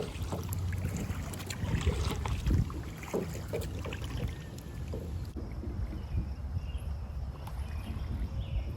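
Kayak paddling: water splashing and knocking around the boat, with wind rumbling on the microphone. A little past halfway the sound changes abruptly and the hiss drops away.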